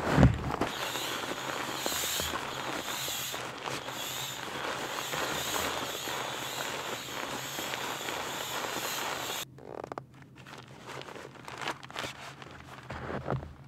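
Crinkly fabric of an inflatable sleeping pad crackling and rustling as it is handled and rolled, a dense steady crackle that stops abruptly about nine and a half seconds in, then lighter handling rustles.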